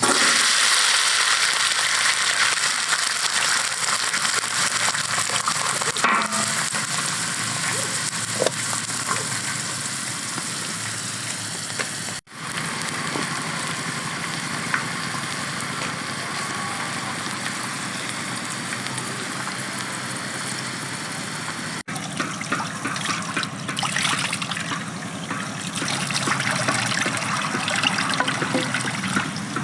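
Water running and splashing steadily, in three stretches with abrupt cuts between them about twelve and twenty-two seconds in.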